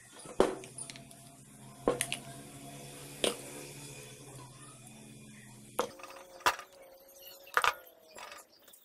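Sharp metallic clinks and knocks, about seven in all, as the drill press's electric motor is taken apart by hand with tools. A steady low hum runs underneath and cuts off suddenly about six seconds in.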